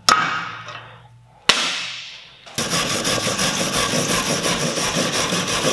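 Two sharp metal strikes on a rusty steel axle flange, about a second and a half apart, each ringing briefly. From about halfway, a steel wire brush scrubs steadily and scratchily over the rusty flange.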